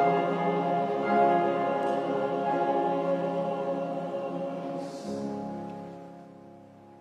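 Men's choir holding the closing chord of a hymn, the sustained chord fading away. A brief hiss about five seconds in ends the sung chord, and a softer, lower chord rings on and dies into the room's reverberation.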